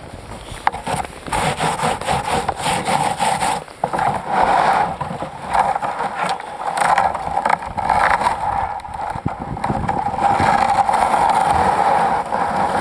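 Kayak hull scraping and rubbing against snow and ice: a rough, uneven grinding that starts about a second in, breaks off briefly a couple of times and is loudest near the end.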